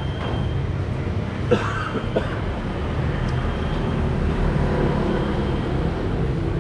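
Steady low background rumble, with two short knocks about one and a half and two seconds in.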